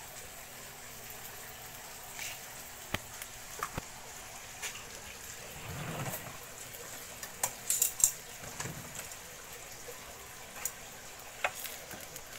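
Eggs and sliced onions sizzling quietly in a nonstick double-sided frying pan on a gas burner, with a few light clicks and a short run of clinks about two-thirds of the way through.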